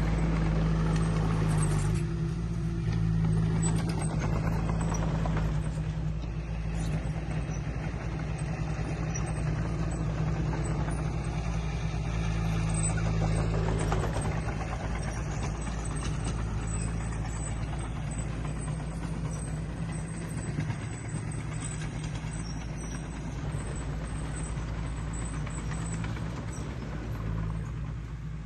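Heavy earthmoving machine's diesel engine running steadily with a low drone, a little quieter in the second half.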